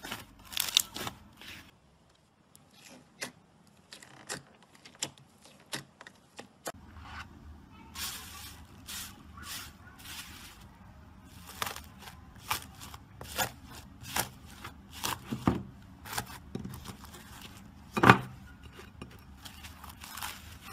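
Hands poking, pressing and kneading fluffy slime, making a run of small crackles and sticky pops as air pockets in it burst. The popping is sparse at first, then denser, with one loud pop near the end.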